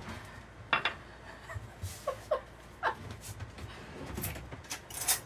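Quiet galley with a faint low steady hum, a few light clicks and taps, and a couple of brief soft chuckles.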